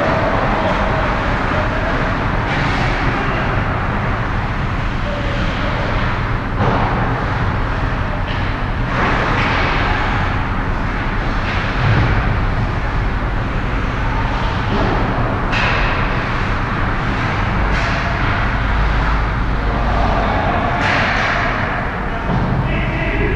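Ice hockey game on an indoor rink: skates scraping the ice, with occasional sharp knocks of sticks and puck, over a steady low rumble.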